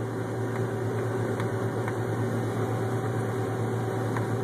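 Steady drone of a John Deere 9670 STS combine heard from inside its cab, the engine and threshing machinery humming low under the hiss of the cab fan. A few faint clicks sound over it.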